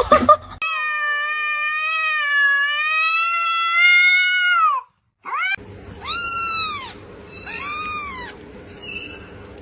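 A cat giving one long drawn-out yowl of about four seconds that drops in pitch at the end, then, after a short gap, a cat meowing two or three times.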